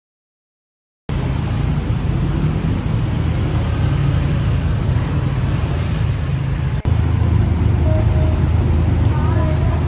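Steady low rumble of motor-vehicle traffic or a vehicle running, starting abruptly about a second in after silence, with a brief break near the 7-second mark.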